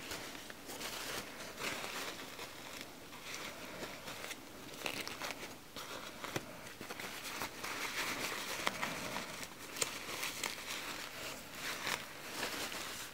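Pampers disposable diapers handled and unfolded by hand: their papery, plastic-backed covers crinkle and rustle in irregular bursts of crackling, with a few sharper ticks.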